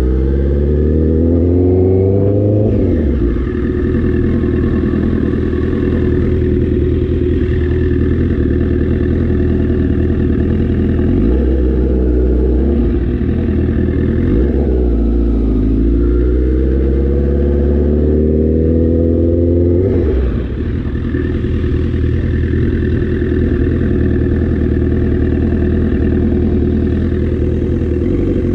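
Motorcycle engine running under way, its pitch climbing as it accelerates in the first couple of seconds, then a gear change. It runs steadily, easing off and pulling again a few times along the way, with further shifts about a third of the way in and again about two-thirds in.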